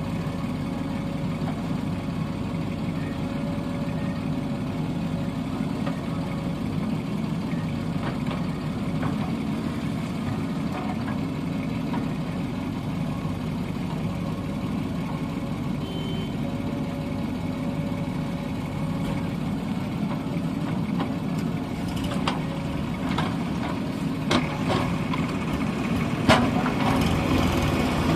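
Diesel engine of heavy machinery running steadily at low speed. A few sharp knocks or clanks come in the last several seconds.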